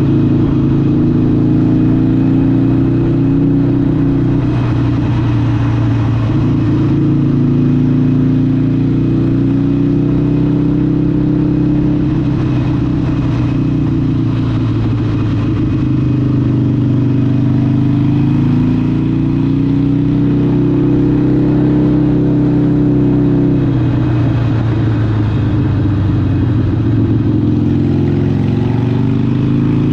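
Harley-Davidson 883 SuperLow's air-cooled 883cc Evolution V-twin running through a Vance & Hines aftermarket exhaust while riding. The engine note rises and falls gently with the throttle, drops a little past the middle, and climbs again near the end.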